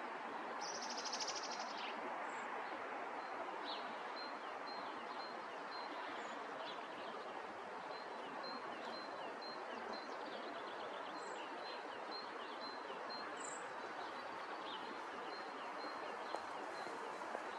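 Outdoor ambience: a steady background rush with small songbirds chirping and twittering throughout, a short high buzzy trill about a second in, and a thin high note repeated a couple of times a second from a few seconds in.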